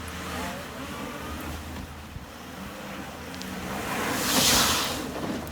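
Off-road vehicle engine running with a steady low hum. A rush of noise swells up about four seconds in and dies away.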